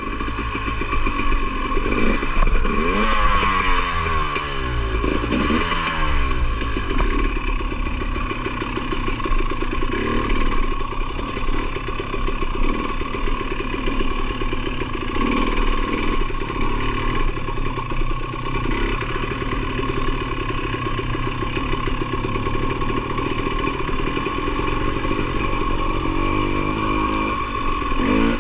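KTM 300 XC-W TPI fuel-injected two-stroke dirt bike engine being ridden on a trail. Its pitch rises and falls sharply with the throttle a few seconds in, then runs on at a steadier pitch with short blips of throttle.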